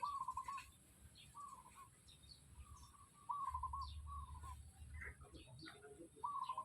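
Chickens calling: a run of short, warbling trills repeated every second or so, with scattered higher chirps. A low rumble comes in about halfway through.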